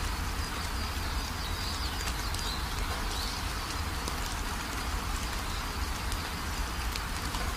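Steady outdoor ambience: an even hiss over a low rumble, with faint high bird chirps about two to three seconds in.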